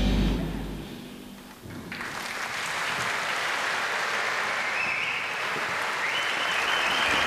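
Stage music fading out, then, about two seconds in, an audience suddenly breaks into steady applause.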